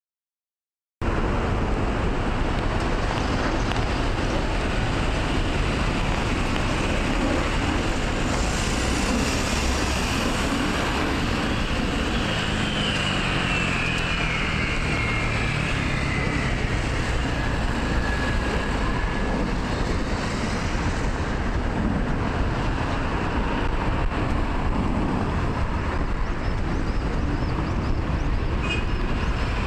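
Steady road traffic noise with a low rumble, starting about a second in. About halfway through, a passing vehicle's whine falls in pitch.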